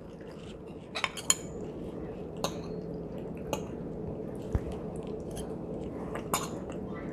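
Cutlery clinking against dishware a handful of times, over a steady low hum.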